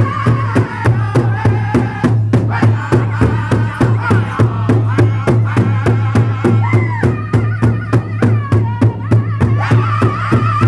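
Powwow drum group performing a chicken dance song: several drummers strike one large powwow drum together in a steady beat of about three to four strokes a second while the group sings over it in high voices. The singing breaks off briefly about two seconds in.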